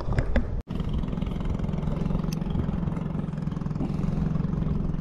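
A small engine running steadily at an even speed. It starts abruptly after a brief dropout about half a second in.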